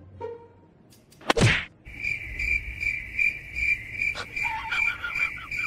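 A sharp slap or swish about a second in, then crickets chirping steadily, starting abruptly, as a cricket-chirp sound effect.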